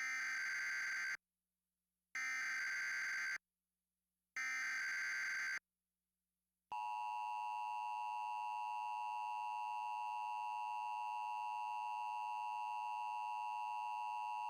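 Emergency Alert System header: three bursts of SAME digital data, each about a second long with a second's gap between them, sound as a buzzy warble. About seven seconds in, the EAS two-tone attention signal (853 and 960 Hz) starts and sounds steadily for about eight seconds, announcing an emergency alert.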